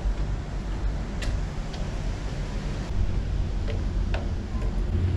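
Steady low rumble inside a passenger ferry, with a few short, sharp clicks scattered through it.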